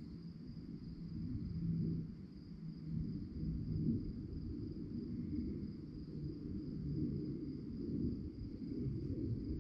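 Crickets chirping in a steady, unbroken high trill over a louder, uneven low rumble.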